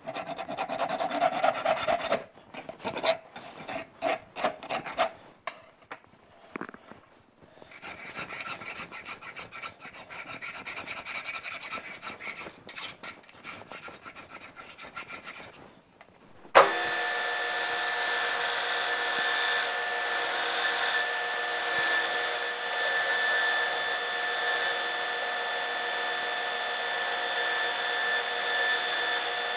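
Hand file rasping back and forth over a metal bushing clamped in a bench vise, first with a flat file and then a round file. The strokes are heavy for the first few seconds, then lighter. About sixteen seconds in the filing gives way abruptly to a bench belt grinder running steadily, with a constant whine.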